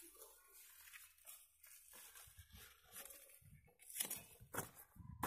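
Taro leaves and stalks rustling and tearing as they are cut among the plants, with a few sharp snaps in the last second and a half.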